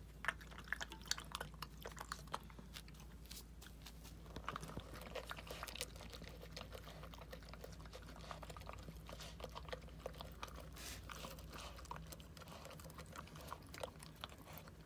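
A dog eating dry kibble from a stainless steel bowl: irregular crunching and chewing.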